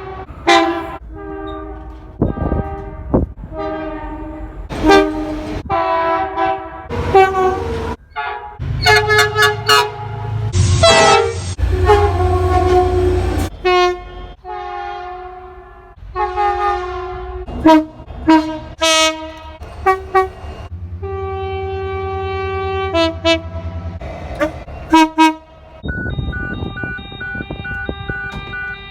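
Locomotive air horns sounding a string of short and long blasts, each a chord of several tones, cut one after another. A low engine rumble sits under the blasts about halfway through, and a held horn chord sounds near the end.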